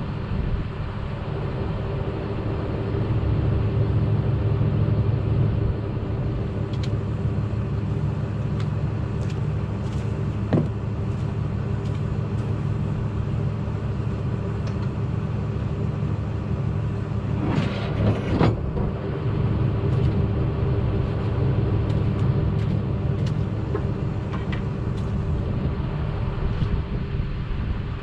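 Case 680B backhoe engine running steadily, with a sharp metallic knock about ten seconds in and a brief clatter a few seconds later.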